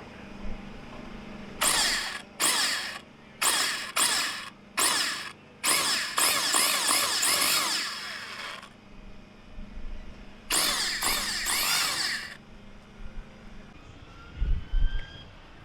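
Small brushless electric motor revved in a string of short bursts and then two longer pulls, each a high-pitched whine that wavers as the throttle changes.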